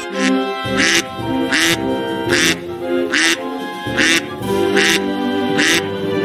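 Duck quacking: a run of short, harsh quacks, a little more than one a second, over background music with sustained notes.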